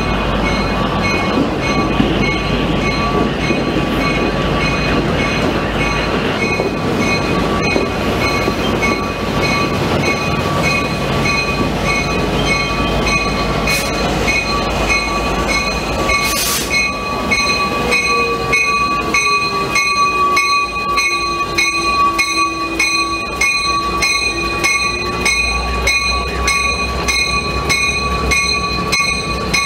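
Passenger train rolling slowly through the station, its cars rumbling past, with a steady high-pitched whine throughout. About halfway through, a short loud burst is followed by a regular pulsing of about two beats a second, and a lower tone slides down in pitch.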